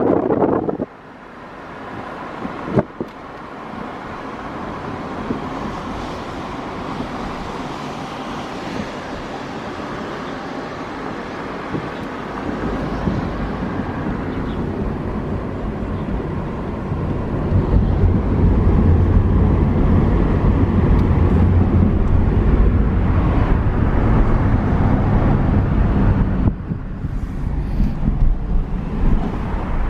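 A car's engine and road noise, a steady rumble that grows louder and deeper from about twelve seconds in, holds, then eases off a little near the end.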